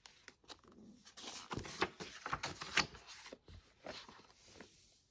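Paper pages of a picture book being handled and turned: irregular soft rustles and light taps.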